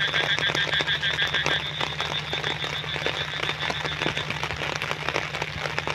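Frogs calling in a rapid pulsed trill chorus. A lower trill stops about a second and a half in, and a higher one carries on until about four seconds in, over a scatter of clicks and a steady low hum.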